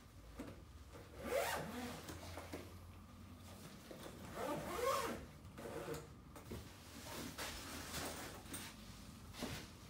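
Zippers on a fabric wheeled medical bag being pulled along to close its compartments, with two long, loud zips about a second and a half in and around five seconds in, and smaller zipper and handling scrapes after.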